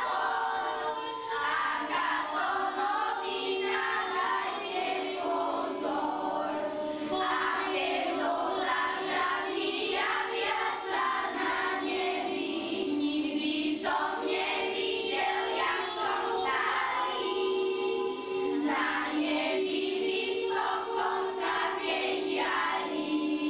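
A group of children singing together as a choir, continuous through the whole stretch with sustained held notes.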